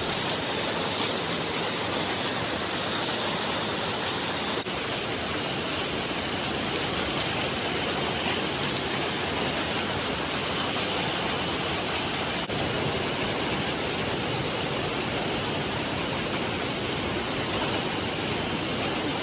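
Small hail mixed with rain pelting a wet paved lot: a steady, dense hiss.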